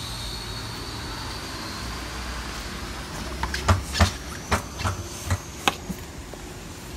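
Steady rain hiss with a faint high whine that slowly rises in pitch. About halfway through, a quick run of about seven sharp knocks and clatters as the camera phone is fumbled and bumped against the ticket gate's casing.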